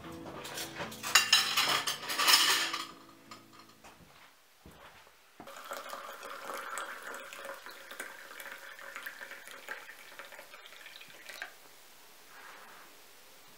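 Tea poured from a glass teapot into ceramic cups: a loud splashing pour about a second in, lasting a second and a half, then a longer, quieter pour into the next cup from about five and a half to eleven seconds in.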